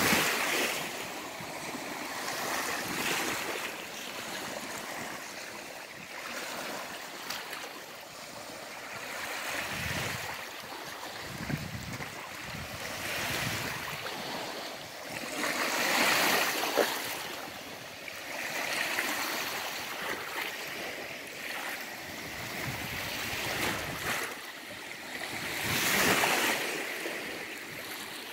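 Small waves washing up on a sand beach of Lake Superior, a steady wash that swells and falls back every few seconds.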